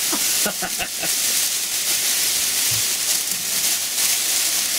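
Foil emergency blankets crinkling and rustling as they are handled and pulled into place, a dense crackling hiss with a few sharper crackles in the first second.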